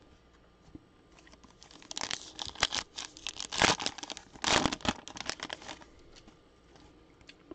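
Foil wrapper of a 2021-22 Donruss basketball card pack being torn open by hand, crinkling and crackling. It starts about two seconds in and runs for about three and a half seconds.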